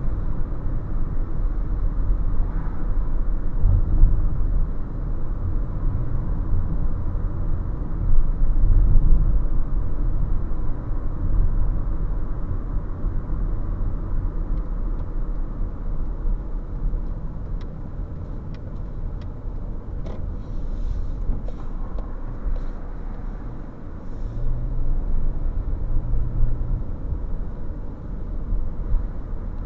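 Car driving slowly, heard from inside the cabin: a steady low rumble of engine and tyres, with a scatter of light clicks about two-thirds of the way through.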